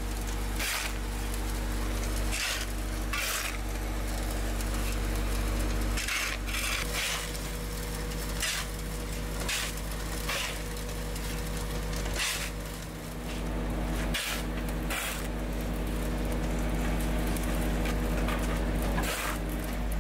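Steel shovels scraping across the road and scooping loose asphalt, in short gritty strokes every second or two, over the steady hum of the asphalt truck's engine running.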